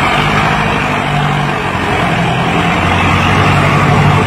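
Ford 6600 tractor's three-cylinder diesel engine running steadily under load while pulling a disc plough through soil.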